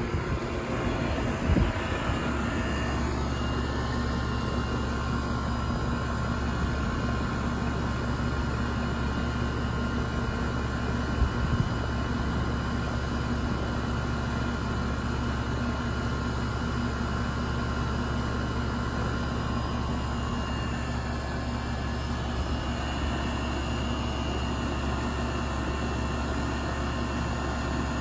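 A 2001 York central air conditioner's outdoor condensing unit running steadily, its condenser fan spinning: a constant low hum with a few faint steady tones over the rush of air.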